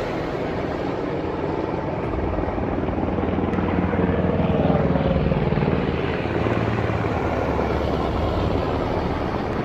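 A formation of military helicopters flying low overhead: a steady, loud rotor chop and engine noise. It swells to a peak about four to five seconds in, then eases a little.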